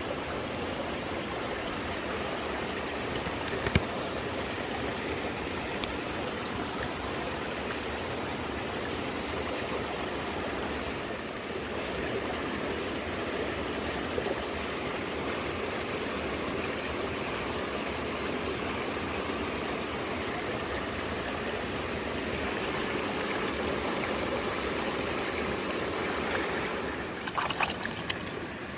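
Mountain stream flowing over rocks, a steady rush of water. A sharp click about four seconds in and a short run of clicks near the end.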